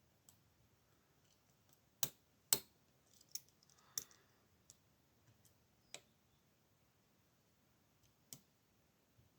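Irregular metallic clicks and taps of a lock pick working the pin stack of a brass pin-tumbler padlock under tension, with two louder clicks about two seconds in and scattered fainter ones after.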